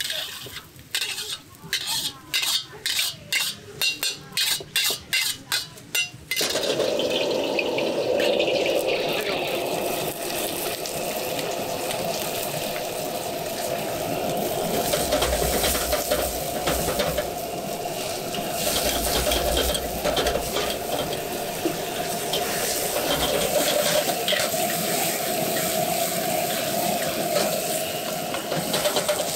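For about six seconds there are sharp knocks, about three a second. Then the sound switches suddenly to greens stir-frying in a wok over a gas burner: steady sizzling, with the metal spatula scraping and stirring against the wok.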